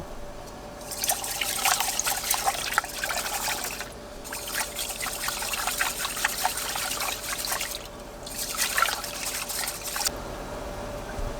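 Water running or being poured in three spells of a few seconds each, splashing, with short pauses between.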